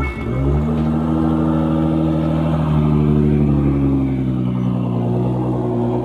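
Car engine sound, pitch falling back from a rev in the first half-second, then held at a steady drone that fades near the end.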